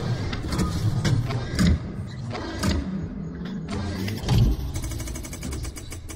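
Produced car-engine sound effect of an engine starting and running, with several sharp hits layered over it. It fades out at the end.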